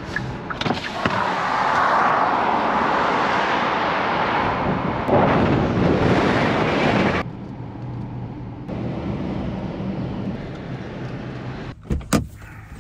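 Road and wind noise of a 2022 Hyundai Santa Cruz pickup driving, loudest for the first seven seconds. It then drops suddenly to a quieter steady rumble, with a few sharp clicks near the end.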